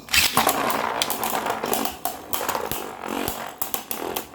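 Two Beyblade Burst spinning tops whirring and clashing in a plastic stadium, with many sharp clicks and knocks over a steady scraping whir. The noise starts suddenly at the outset, as the tops are launched.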